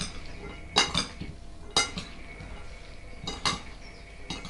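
Two metal spoons clinking against a ceramic bowl as chopped vegetables are tossed, with a sharp ringing clink about once a second.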